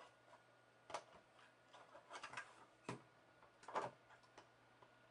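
Mac Mini case being handled as its cover is fitted back on: light, scattered clicks and scrapes of the case parts, with the loudest click a little before four seconds in.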